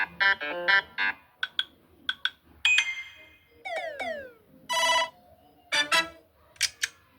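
iPhone notification alert tones played one after another: a string of short electronic chimes and pings with brief gaps between them, including a quick run of stepped notes at the start and a pair of falling swoops about halfway through.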